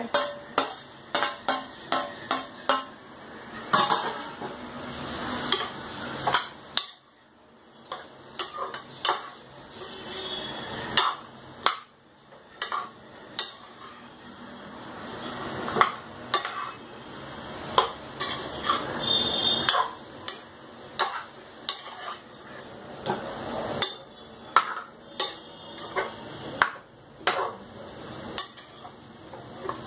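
Metal spoon stirring chicken pieces and chopped tomato in a metal pressure cooker, with repeated clinks and knocks against the pot. The clinks come in quick runs, with short pauses about 7 and 12 seconds in.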